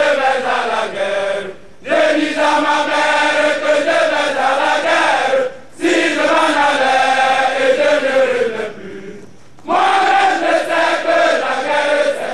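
A group of voices singing a chant in unison, in long sustained phrases broken by short pauses about two seconds, six seconds and nine seconds in.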